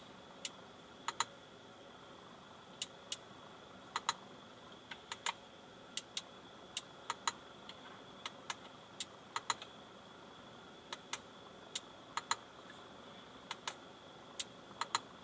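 Sharp clicks at an irregular pace, some in quick pairs, from an Audi A3 MMI rotary control knob and buttons being turned and pressed to move through the infotainment menus. A faint steady high whine sits underneath.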